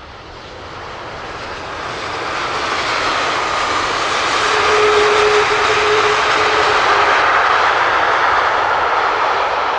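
Boeing 777-200ER's Rolls-Royce Trent jet engines during the landing rollout just after touchdown: a rushing jet noise that swells over the first few seconds to a loud, steady level, with a steady whine running through it for a few seconds in the middle.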